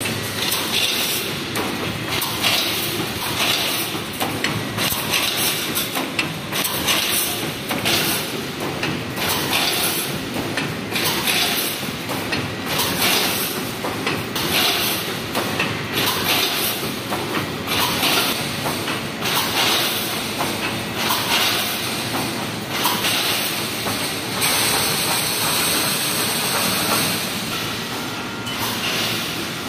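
Automatic wire mesh welding machine running: steady mechanical noise with a regular pulse of spot-welding strokes, roughly once a second.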